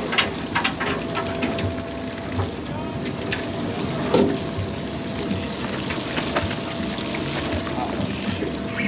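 Party boat's machinery running with a steady drone and a constant hum, under background voices of anglers along the rail. Scattered clicks and knocks come through, the loudest about four seconds in.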